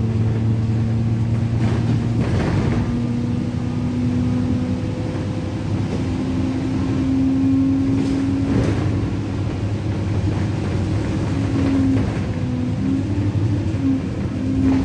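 Alexander Dennis Enviro 200 bus's 6.7-litre diesel engine and Allison automatic gearbox, heard from inside the passenger cabin as the bus drives along. The engine note climbs slowly for several seconds, then wavers up and down near the end. Two brief knocks come about two and eight seconds in.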